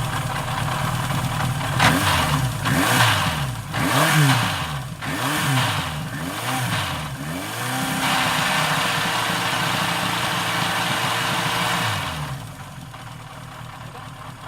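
Suzuki GSX motorcycle engine idling, then blipped several times, the revs rising and falling each time, then held at a steady higher rev for a few seconds before it winds down and stops near the end.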